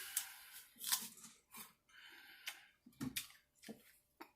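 A person chewing food close to the microphone: a run of short, irregular mouth clicks and smacks.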